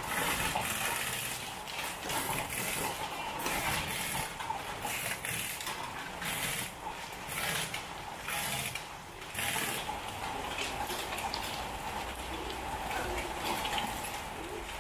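Heavy rain with hail: a dense, steady hiss of downpour with irregular surges of hailstones and drops pelting hard surfaces, easing somewhat after about ten seconds.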